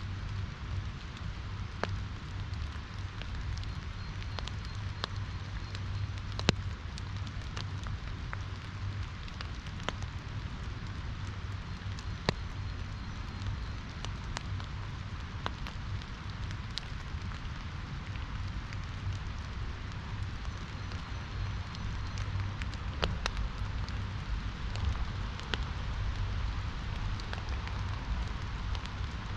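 Steady rain, with many sharp, irregular drop hits close by over a continuous low rush of the river.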